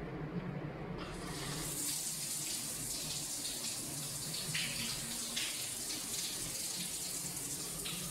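Shower turned on about a second in: water spraying from the showerhead onto the tiled wall, a steady hiss.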